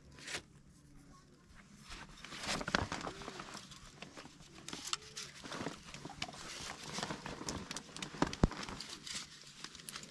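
Flour being scooped and sifted through a round hand sieve: a dense stretch of scraping and small knocks, starting about two seconds in.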